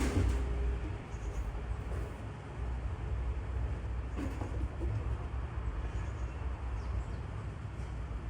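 Wind buffeting the microphone: a steady low rumble with an even outdoor hiss above it.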